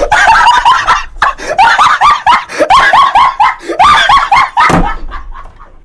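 A rapid, high-pitched run of cackling, laugh-like yelps from a comedy meme clip of a small dog "laughing", several cries a second, fading away near the end.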